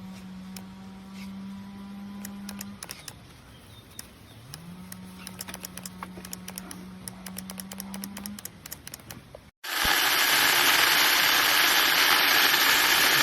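Small battery mini chainsaw's electric motor running in two short bursts, the second rising in pitch as it spins up, with many sharp clicks over it. After a sudden break near the end comes a loud, even rushing noise.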